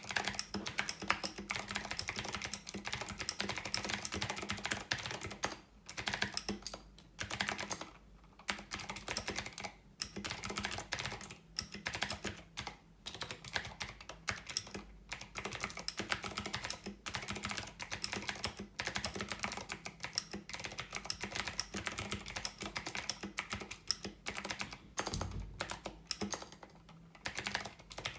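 Fast, continuous typing on a mechanical keyboard fitted with Signature Plastics SA keycaps over Cherry MX switches, a dense run of key clacks broken by a few brief pauses.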